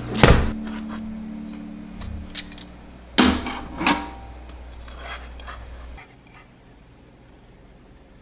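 Metal springform cake pan clanking and knocking as it is handled: a sharp clank just after the start, a few light taps around two seconds in, and two louder knocks around three and four seconds in. A low steady hum underneath cuts off about six seconds in, leaving quiet room tone.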